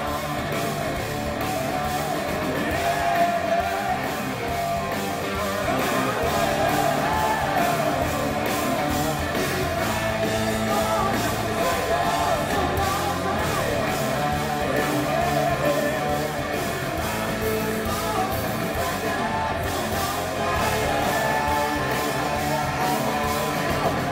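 Hard rock band playing live with a singer over electric guitars and a steady drum beat.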